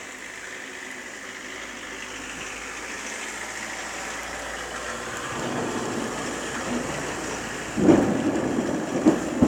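Thunder from a lightning strike: a rumble that swells gradually, then breaks into louder cracks about eight seconds in.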